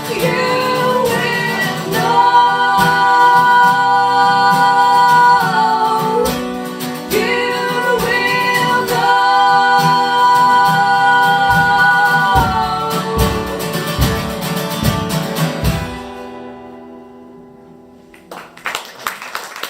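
Closing bars of a live song: long held sung notes, with a female lead, over strummed acoustic guitar. The music stops about sixteen seconds in and the guitar rings out. Applause starts near the end.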